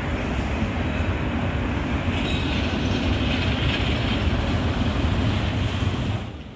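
V3A-2010-CA articulated tram rolling past on its rails, mixed with steady road traffic. The noise swells as the tram comes close about two seconds in, then drops away sharply near the end.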